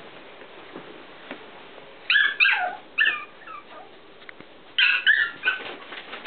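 Chihuahua puppies yipping in play: two quick bursts of a few high-pitched yips each, a couple of seconds apart.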